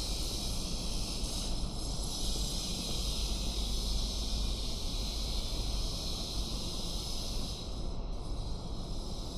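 Steady outdoor background hiss with a fluctuating low rumble from wind on the microphone.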